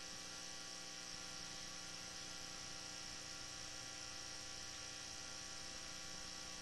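Steady electrical mains hum with a faint high hiss, unchanging throughout.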